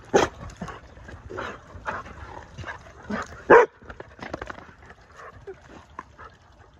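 Labrador dogs barking in play: a handful of short barks, the loudest about three and a half seconds in.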